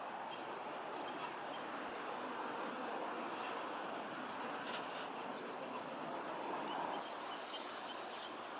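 Short, high bird calls every second or so over a steady rushing background noise.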